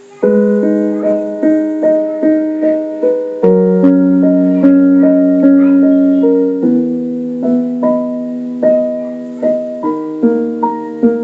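Piano music starting abruptly just after the beginning: a repeating pattern of plucked-sounding notes over held chords, a new note every half second or so.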